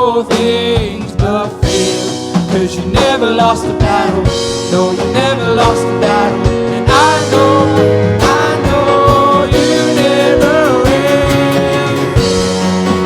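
Live worship band music: drum kit, guitar and keyboard, with a singing voice holding and bending long notes without clear words.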